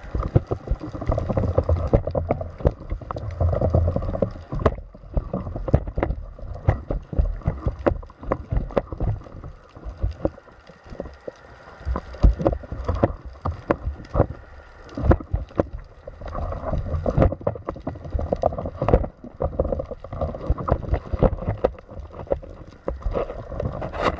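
Water sloshing and gurgling around an underwater camera fixed to a speargun, with many irregular knocks and clicks as the gun and its shooting line are handled.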